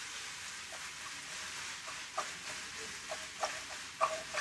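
Sliced red onions sizzling in oil and ghee in a frying pan: a faint, steady hiss with scattered small pops and crackles.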